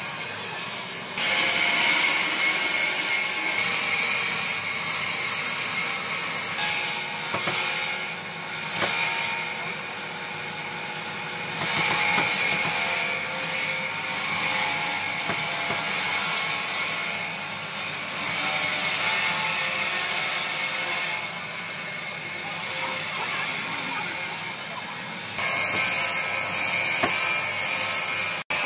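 Power tool working wood: a steady, dense noise that jumps abruptly in level several times.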